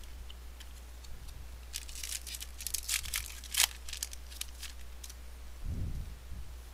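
Baseball card pack wrapper being torn open and crinkled by hand: a run of sharp crackles over a few seconds, loudest about three and a half seconds in. A soft low thud near the end.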